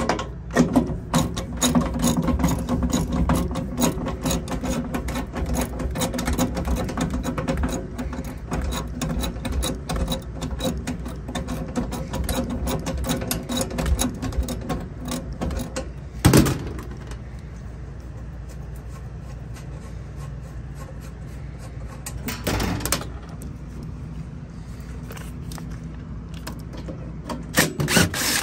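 Hand tools and a cordless drill-driver working the mounting bolts to take out the failed Trane X13 blower motor. Fast ratchet-like clicking fills the first half, then the drill-driver runs in short bursts, once about 16 seconds in, again about 22 seconds in, and once more near the end.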